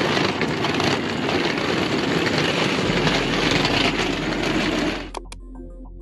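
Steady rushing street noise from passing traffic, loud on the microphone. It cuts off suddenly about five seconds in, and soft background music with a steady beat takes over.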